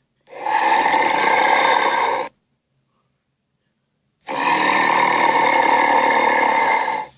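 Two harsh, raspy creature-call sound effects for an invented dinosaur-like beast. The first lasts about two seconds, the second about three, each starting and stopping abruptly.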